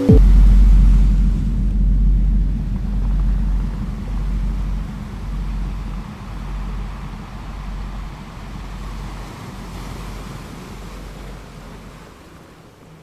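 A deep rumble that cuts in suddenly and slowly fades away.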